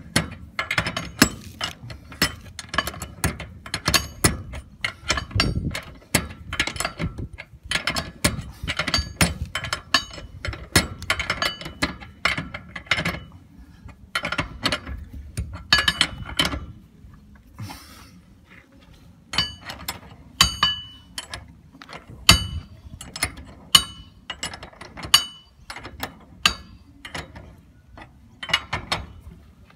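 Steel ring spanner clicking and clinking on the nuts, washers and steel flange as the flange bolts are nipped up one after another, a run of sharp metallic ticks with a brief lull past the middle.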